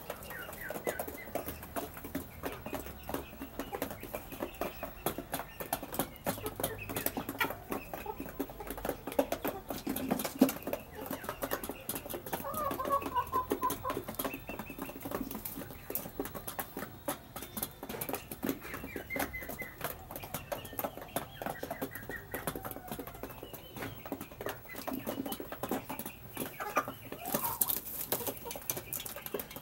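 Half-grown chickens pecking at their fattening feed on a hard floor: a dense run of quick taps, with clucks and short calls now and then. A short rustle of feathers near the end.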